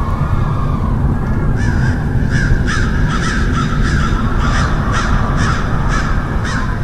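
Crows cawing: a run of about a dozen harsh caws, roughly two a second, starting a couple of seconds in. They sound over a steady low rumble.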